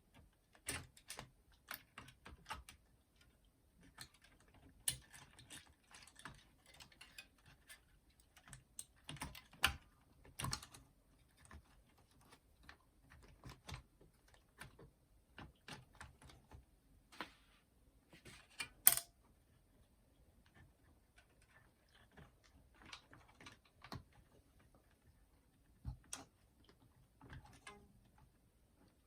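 Irregular small clicks and taps of plastic and metal parts being handled while a belt is replaced in a JVC M70 boombox's cassette deck, with a sharper click about nineteen seconds in.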